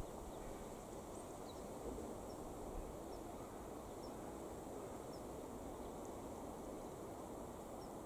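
Steady low rush of wind outdoors, with faint, short, high bird chirps scattered every second or so and a couple of soft low bumps about two and three seconds in.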